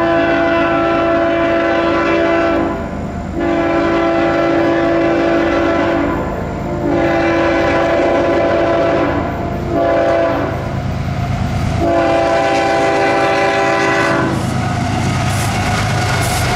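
CSX freight locomotive's air horn sounding a chord in several blasts for a grade crossing, the last blast cutting off about fourteen seconds in. After that, the locomotives pass with a heavy rumble of engines and wheels.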